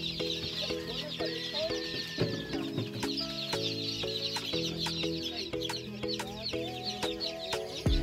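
A crowd of gamefowl chicks peeping all at once, a dense, continuous chorus of short high chirps, over background music with steady chords.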